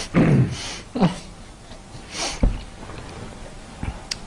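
A man stifling laughter behind his hand: three short, breathy bursts of suppressed laughter in the first two and a half seconds.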